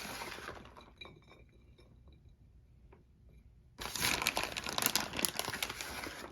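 Shredded cheese being spread across a plate by hand: a dry, crinkly rustling that fades out within the first second and starts again about four seconds in.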